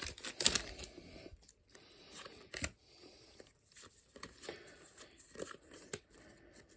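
Booster pack wrapper crinkling and tearing, loudest at the start, followed by soft rustles and light clicks of trading cards being handled.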